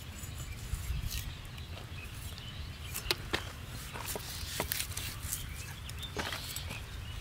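Buffalo heart being hand-sliced on boti blades, with irregular small clicks and taps as meat is cut and handled, over a steady low rumble.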